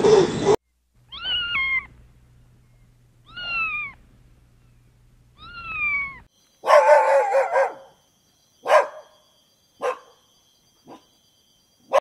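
Kitten meowing three times, about two seconds apart, each meow short and falling in pitch, over a low hum. Then a louder, longer call, followed by three short sharp sounds about a second apart.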